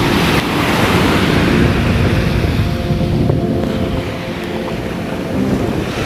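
Atlantic surf breaking and washing foamy water over sand and the concrete of a seawall jetty, a steady loud rush of water with wind buffeting the microphone.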